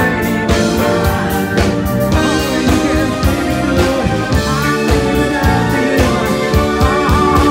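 Live band playing rock music, with drums keeping a steady beat under guitar.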